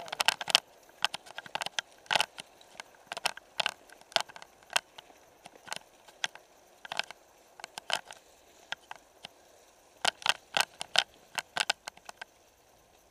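Mountain bike clattering over a rough dirt trail: irregular sharp clicks and knocks, bunched in quick clusters near the start and again about ten seconds in, sparser in between.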